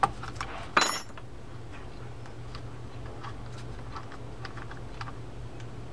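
Small metal parts of a Shimano Trinidad 12A fishing reel being handled: a sharp ringing metallic clink about a second in, then scattered faint light clicks as the handle's cap nut is worked by hand. The nut is being backed off because it was not threading on square. A low steady hum runs underneath.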